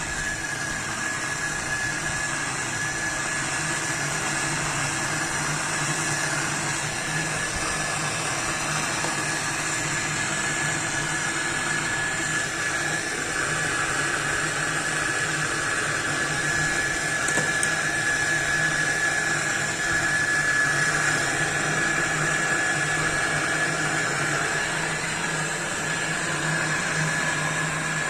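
A motor running steadily, with a constant high-pitched whine over a low hum.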